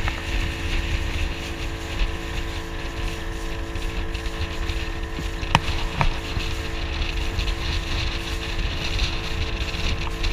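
Small motorboat's engine running steadily while underway, with water rushing past the hull and wind buffeting the microphone. Two short knocks come a little past halfway through.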